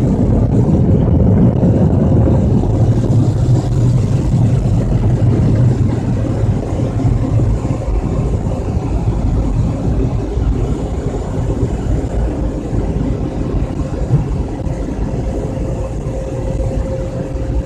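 Car engine and tyre noise heard from inside the cabin as the car drives slowly, a steady low rumble with a faint steady hum, easing off a little over the second half.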